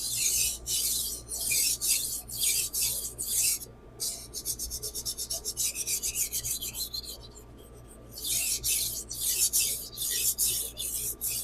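Steel kitchen-knife blade being stroked back and forth on a Naniwa Chosera 600-grit whetstone: a steady run of rasping strokes, about two to three a second, then a quick run of short strokes several a second from about four seconds in, a brief pause, and slower strokes again near the end.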